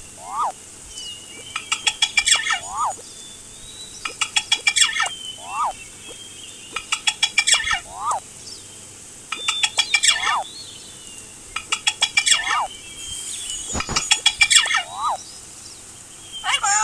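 Looped bird-call sound effect: a rapid rattling series of calls repeating about every two and a half seconds, each followed by a short rising-and-falling note. A single low thump comes about three quarters of the way through.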